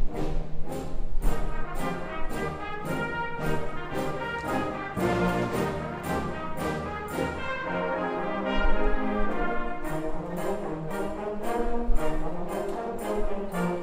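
Intermediate-school concert band playing: brass and saxophones in held chords over a steady percussion beat of about three strokes a second.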